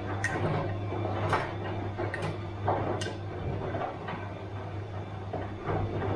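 Bosch washing machine running mid-cycle: a steady low motor hum with irregular knocks and clatters as the drum turns the load.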